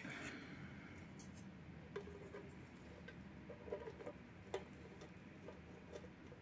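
Faint handling of thin clear plastic containers. A brief scrape right at the start is followed by scattered light clicks and taps, the sharpest about four and a half seconds in.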